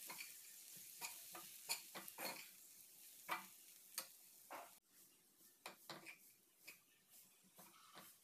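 Perforated steel ladle scraping and tapping against an aluminium pressure-cooker pan as soaked flattened rice (aval) is stirred through the fried tomato and onion, a soft irregular clicking every half second or so. A faint frying hiss runs underneath and cuts off suddenly about halfway through.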